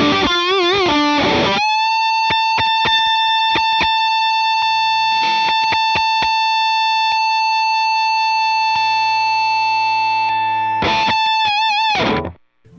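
Electric guitar played through an overdrive pedal. A quick phrase of bent, wavering notes comes first, then one long high note sustains for about nine seconds. Near the end the note is shaken with wide vibrato, and then it stops.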